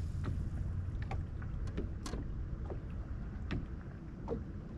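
Steady low rumble from a fishing boat on the water, with scattered small clicks and taps.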